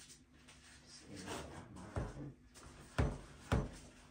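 Gloved hands mixing and kneading pide dough in a plastic basin: rustling and squishing of the disposable gloves in the sticky dough, with three dull thumps about two, three and three and a half seconds in.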